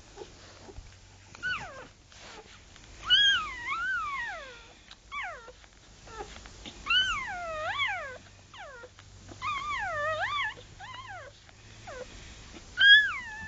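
Newborn puppies squeaking: a string of about eight high, wavering cries that rise and fall in pitch, the longer ones lasting over a second.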